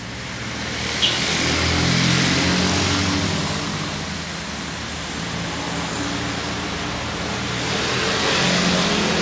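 Passing road traffic: vehicle engines over a steady traffic hiss, swelling louder about two seconds in and again near the end, with a short click about a second in.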